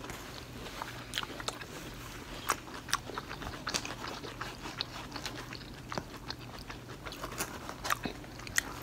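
Close-up chewing and eating sounds of stuffed peppers, with scattered soft clicks and taps of a knife and fork against a plate.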